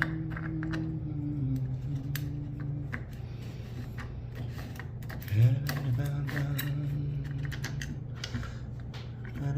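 A man humming long held notes that step and slide in pitch, over frequent small clicks and taps from handling hard 3D-printed plastic parts.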